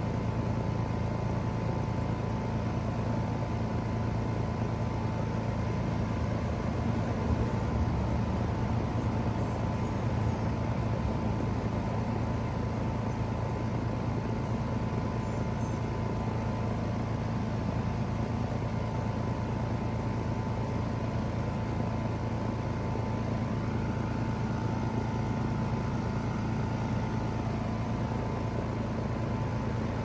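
2016 Trane XR14 3-ton heat pump's outdoor unit running steadily in cooling mode: the Alliance scroll compressor's steady low hum under the condenser fan's airflow noise, with a faint high tone above.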